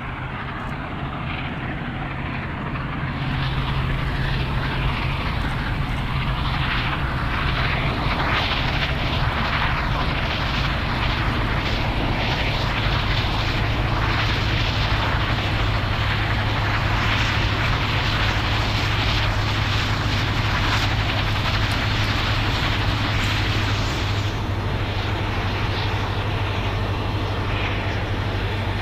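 Union Pacific steam special headed by Big Boy 4014 passing under power: a loud, continuous heavy rumble of exhaust and running gear that builds over the first few seconds and then holds steady.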